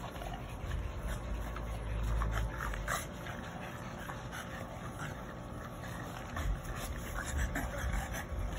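French bulldogs play-wrestling, making many short, scattered vocal noises. A low rumble rises twice, about two seconds in and again near the end.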